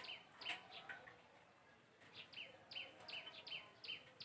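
A bird calling faintly in a rapid series of short falling chirps, about four a second, that pauses for about a second before starting up again.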